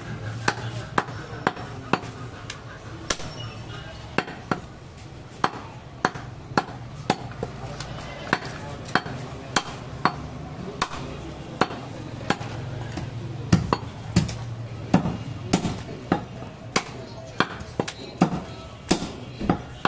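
A heavy butcher's cleaver chopping goat meat on a wooden log chopping block: a steady run of sharp thwacks, about two a second, with a few harder strikes near the end.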